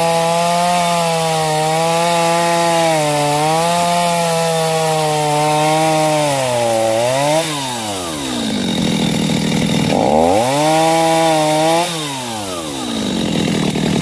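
Stihl chainsaw running at high revs while cutting into a tree trunk, the pitch sagging slightly as the chain bites. About seven seconds in it drops off sharply toward idle, is revved up again for about two seconds around ten seconds in, then falls back to a lower idle.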